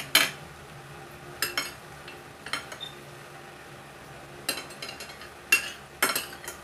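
Metal fork and spoon clinking and scraping on a ceramic plate while eating. The sharp clinks come in small clusters every second or so, sharpest near the start and again near the end.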